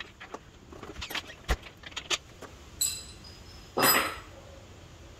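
Handling noises: scattered light knocks and clicks, a clink that rings briefly just under three seconds in, and a louder short clatter about four seconds in.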